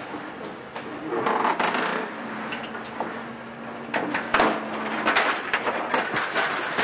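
Caterpillar 340 long-front demolition excavator tearing into a steel-framed brick hall: irregular clanks, cracks and clatters of metal and rubble. From about two seconds in there is a steady hum from the machine underneath.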